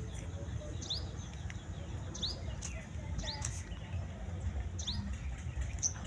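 A bird calling, a short high chirp repeated about once a second, over a steady low rumble.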